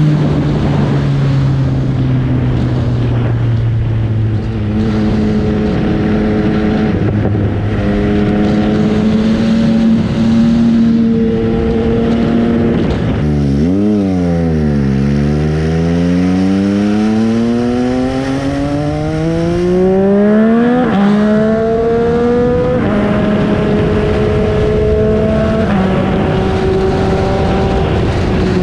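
MV Agusta Brutale 800's three-cylinder engine running under way, its revs held and changed in steps. About halfway through, the revs fall sharply, then climb steadily for about seven seconds until a gear change drops them.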